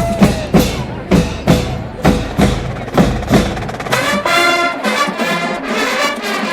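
Marching band playing: the drumline beats a steady pattern of about two strikes a second, then about four seconds in the brass section comes in with held chords and the drums drop back.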